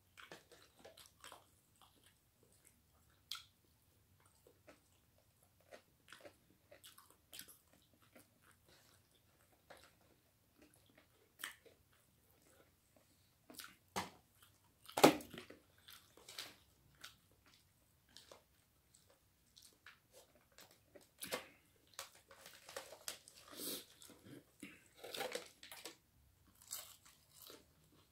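Crunching and chewing of crispy fried chicken close to the microphone, a scatter of short crackly bites and mouth noises, with one much louder short noise about halfway through and denser crunching in the last third.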